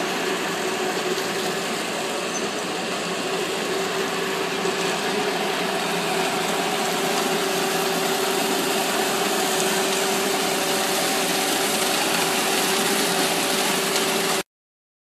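Concrete mixer truck's diesel engine running steadily with a steady tone over it as it pours concrete down its chute into footing forms; the sound cuts off abruptly near the end.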